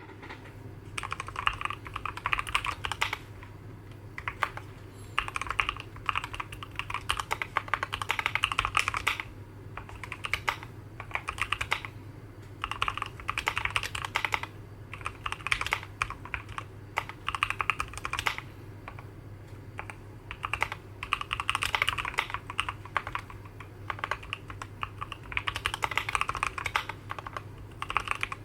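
Typing on a Keychron Q11 split aluminium mechanical keyboard with Gateron Northpole switches and ABS single-shot keycaps: soft, rounded, light key clacks with very quiet bottom-outs. The typing comes in runs of a few seconds with short pauses between them.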